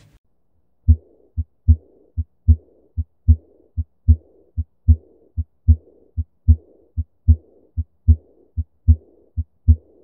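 Recorded heart sounds: a steady lub-dub at about 75 beats a minute, starting about a second in, with a soft, high-pitched blowing murmur after each beat's second sound. It is the early diastolic decrescendo murmur of a leaking semilunar valve, as heard in aortic regurgitation.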